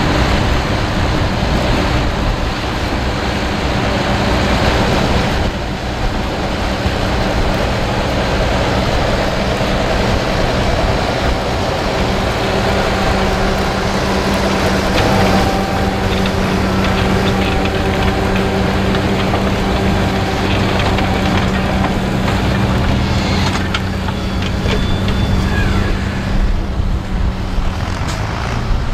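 Fendt 724 Vario tractor's six-cylinder diesel engine running steadily under load as it pulls a six-furrow reversible plough through the ground.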